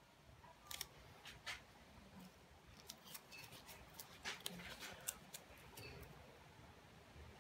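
Faint, irregular clicks and light scrapes as a gloved hand handles a small paint scraper on the painted paper, with the sharpest clicks around four to five seconds in.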